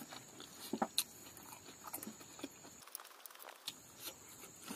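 Close-miked chewing of fried silkworm pupae and rice: soft wet mouth sounds with a few short, sharp crunchy clicks.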